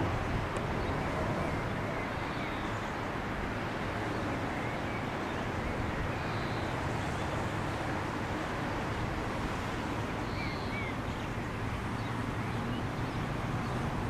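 Steady outdoor rumble and rushing noise that eases slightly after the start, with a few faint bird chirps scattered through it.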